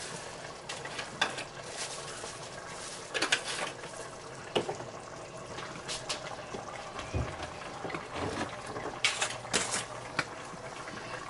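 Seasoning containers clicking and a plastic grocery bag rustling in several short bursts, over the steady sound of a pot of corn boiling on the stove.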